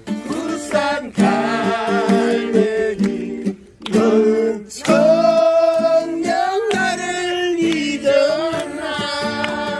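Singing accompanied by acoustic guitar.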